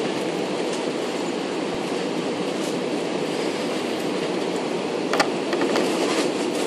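Steady cabin noise of an Airbus A320-200 on short final approach: engines and airflow over the airframe make an even noise, with one sharp knock about five seconds in.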